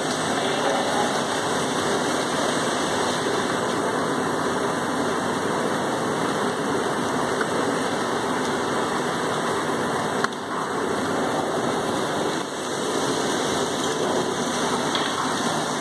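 PP synthetic twine (sutli) extrusion line running: a steady, even mechanical noise from the line's drives and rollers.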